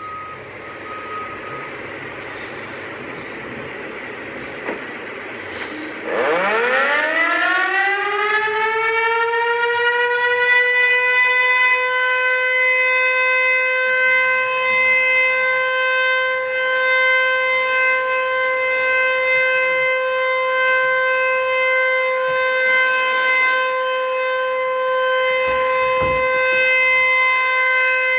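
Outdoor tornado warning siren winding up about six seconds in, its pitch sweeping quickly up and then holding one steady tone. Before it starts there is a steady rushing noise.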